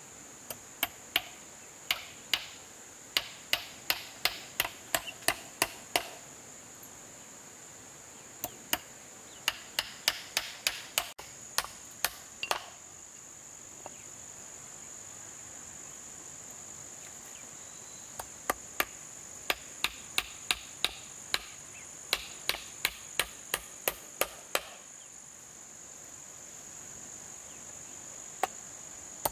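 Hammer blows in short runs of about three strikes a second, stopping and starting several times, over a steady high-pitched drone of insects.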